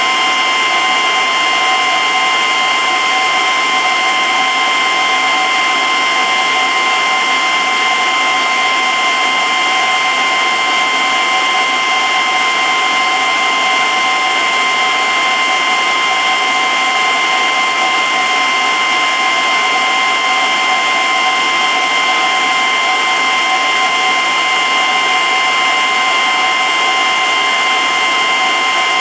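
Steady mechanical whirring with a constant high whine over an even hiss: aquarium pump and filtration equipment running.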